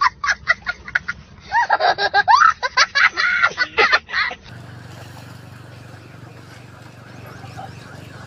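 A young child laughing hard in short rapid bursts, then in longer high-pitched squeals, cutting off suddenly about four and a half seconds in. After that, only faint outdoor background with a steady low hum.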